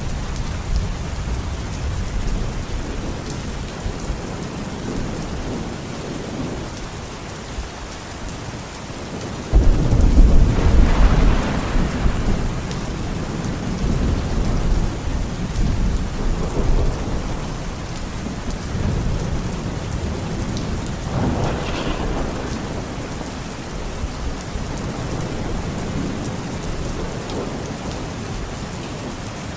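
Steady rain falling in a thunderstorm, with thunder rumbling. About ten seconds in a loud thunderclap breaks in and rolls away over a few seconds, and a smaller peal follows near the middle.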